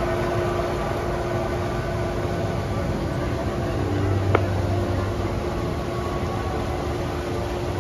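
A steady hum with a few held tones, and one sharp pop about four seconds in, as fireworks shells are launched in the distance.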